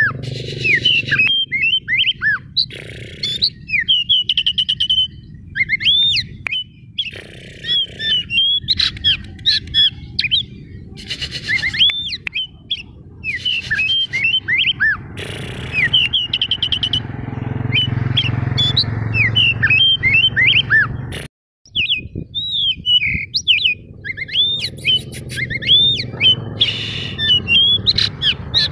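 Oriental magpie-robin (white-breasted kacer) singing a loud, varied song of quick whistled notes that sweep up and down, mixed with harsh rattling bursts. The song breaks off for a moment about three-quarters of the way through. A low rumble runs underneath.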